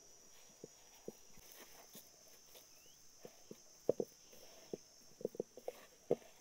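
Hands kneading a stiff flour dough: irregular soft thumps and slaps, coming thicker towards the end, over a steady high-pitched hum.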